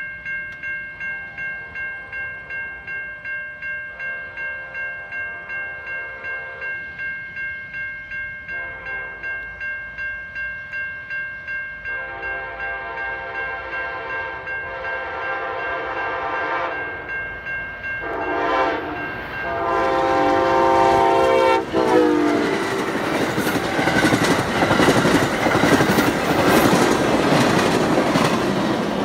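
Railroad crossing bell ringing steadily at about two strokes a second, then an approaching Amtrak passenger train's locomotive horn sounds a series of blasts from about halfway, getting louder. The horn stops and the train passes through the crossing, loud with rumbling and the clatter of wheels on rail joints.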